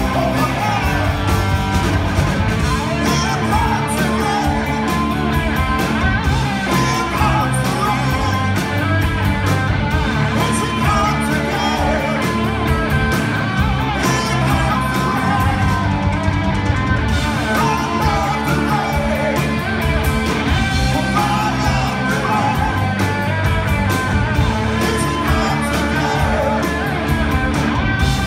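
Live rock band playing loudly: electric guitars, bass and drums with a singer's vocals, heard from within the audience.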